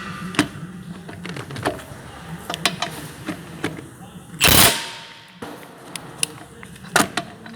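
A Milwaukee 1/2-inch high-torque cordless impact wrench gives one short, loud burst of hammering about four and a half seconds in as it breaks a seized lug nut free. Scattered clicks and knocks of the tool and socket being handled are heard around it.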